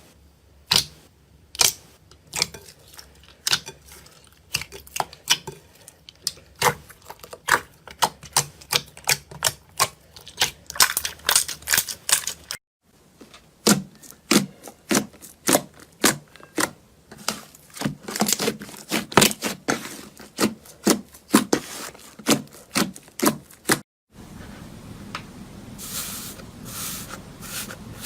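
Crunchy slime-ASMR material being pressed or cut close to the microphone: quick, crisp clicks and crackles, several a second, in three clips that break off abruptly twice.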